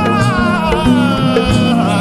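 Slowed-down, reverb-heavy version of a Hindi-Urdu song: a long held melodic line that sinks slowly in pitch over steady low sustained notes.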